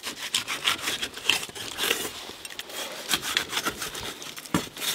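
Cleaver blade scraping and slicing along a grass carp fillet on a wooden cutting board: quick, repeated rasping strokes, with one heavier knock of the blade near the end.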